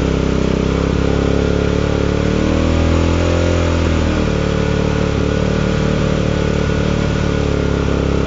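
Bristol 400cc motorcycle engine revved and held at high revs, easing back about four seconds in and then running steadily, during a test of its three-phase charging voltage under load.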